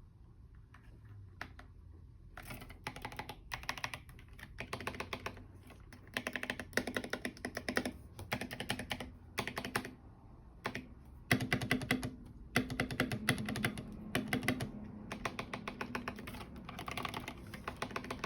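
Typing on an Epomaker TH80 mechanical keyboard with flamingo linear switches and MDA keycaps: a few single keystrokes at first, then fast runs of key clicks with short pauses between them.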